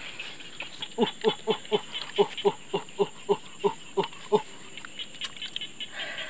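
An animal calling: a run of about a dozen short, evenly spaced pitched notes, roughly four a second, each dropping slightly in pitch. The notes start about a second in and stop shortly after the midpoint, with faint high chirps behind.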